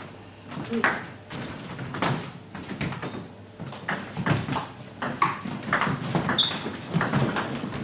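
Celluloid table tennis ball clicking off bats and the table in a doubles rally: a quick, irregular run of sharp knocks.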